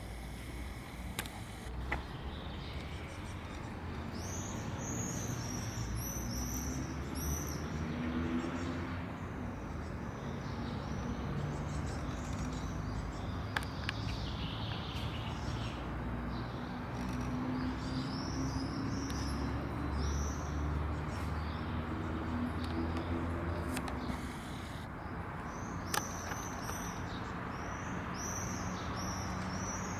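Small birds chirping in quick repeated high chirps, in bursts that come and go, over a steady low background rumble.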